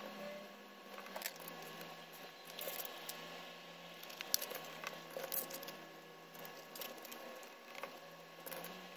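Cardstock discs being handled on a cardboard sheet: soft paper rustling and scattered small taps and clicks as a disc is lifted off its pivot pin, turned and pressed back down, over a faint steady hum.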